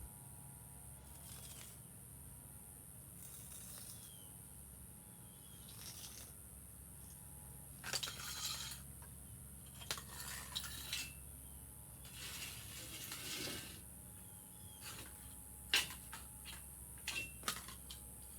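Garden cleanup work: intermittent rustling and scraping, with a few sharp clicks and clinks, the loudest near the end.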